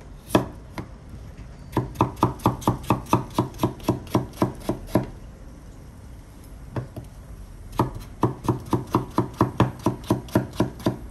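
Kitchen knife cutting raw potato on a cutting board: a couple of single strokes, then two runs of quick, even chopping strokes, about four or five a second, with a pause of a couple of seconds between them.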